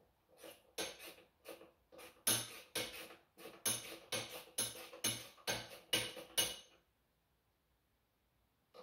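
Hand-tool work on the tractor's metal: a quick run of short, noisy metallic strokes, about three a second, that stops about two seconds before the end.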